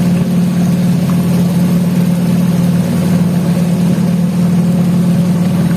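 Motorboat engine running at a steady speed, an even drone that holds one pitch.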